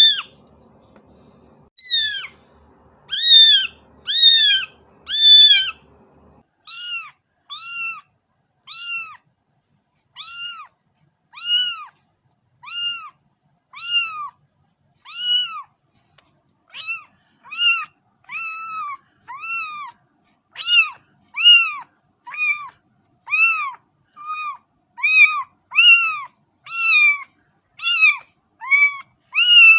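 A cat meowing over and over: short, high-pitched meows about one a second, each rising and then falling in pitch.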